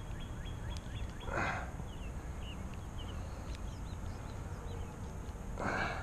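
Quiet outdoor pond-side ambience: faint small birds chirping over a steady low rumble, with two short rushes of noise, one about a second and a half in and one near the end.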